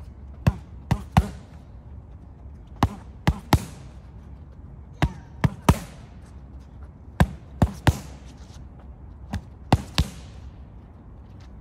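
Boxing gloves smacking into focus mitts in quick three-punch combinations, five combinations about two seconds apart.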